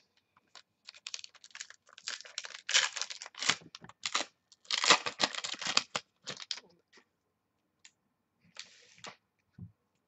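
Foil trading-card pack being torn open and crinkled by hand, in two crackling spells. A shorter rustle near the end comes as the cards are slid out of the wrapper.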